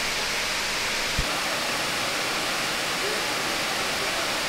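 Steady rushing of a tiered waterfall, Cambugahay Falls, pouring into its plunge pool. There is a brief low bump about a second in.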